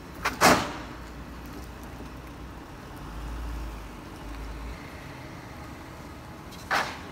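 Car tyres hitting the raised edges of a patched concrete strip across the road: two quick hard knocks, then another knock near the end as a second car crosses. Between them, steady street noise with a low passing rumble.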